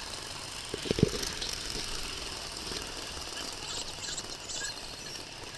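A 5-inch gauge coal-fired Simplex steam locomotive and its passenger wagon running along the track: a steady running noise with a couple of sharp knocks about a second in.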